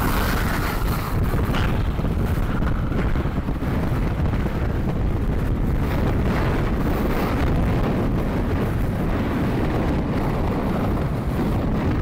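Strong fell-top wind buffeting the microphone: a dense, steady low rumble of wind noise.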